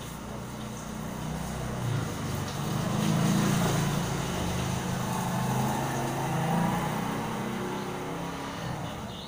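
Small motorcycle engine passing close by on a wet lane, swelling over a few seconds and fading toward the end, over the steady hiss of rain.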